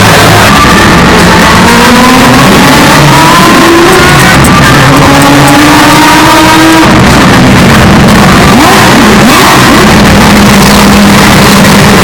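Historic Group C race car engine accelerating hard, its pitch climbing through two gears, then dropping off about seven seconds in and settling to a steadier note near the end. Very loud, at the point of clipping.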